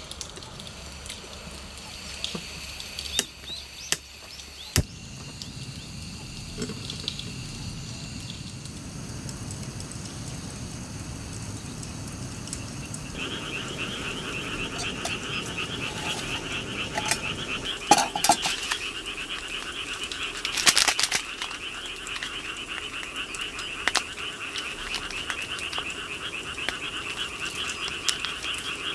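Frogs croaking in a dense, pulsing chorus that comes in about halfway through. Sharp clinks of metal camp mugs and cookware being handled come a few times near the start and again later.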